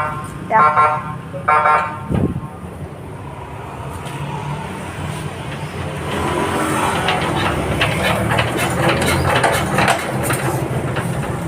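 A 24 hp engine coupled to a 10 kW generator runs with a steady low hum, being tested under throttle after an overhaul. Two short horn-like beeps sound in the first two seconds, and from about six seconds a louder clattering rattle builds over the engine.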